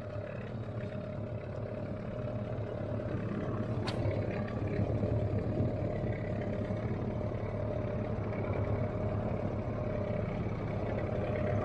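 A boat's motor running steadily, getting slightly louder over the stretch, with one sharp click about four seconds in.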